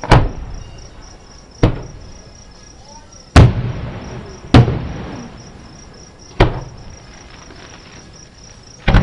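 Aerial fireworks shells bursting about a mile away: six booms spread over the seconds, each fading into a rolling echo. Steady high insect chirping goes on underneath.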